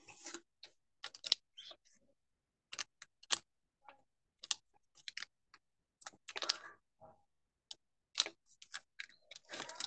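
Irregular sharp clicks and taps spaced about a second apart, with a short rustle near the end, sounding through a video call.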